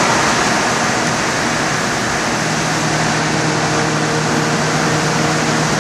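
Car at cruising speed heard from inside the cabin: a steady hiss of wind and tyre noise over a steady engine drone, which grows a little stronger a couple of seconds in.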